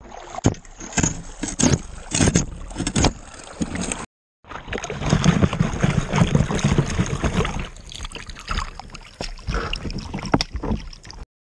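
A shovel scraping and clattering through gravel in a shallow running creek, then water sloshing and splashing as gravel is washed and stirred by hand in a plastic gold pan, with stones clicking against it. Short cuts break the sound twice.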